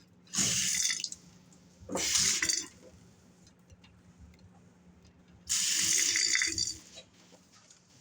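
Newly installed kitchen faucet turned on and off, water gushing into the sink in three short bursts, the last the longest, as dirty water is run out of the line after the supply is reopened.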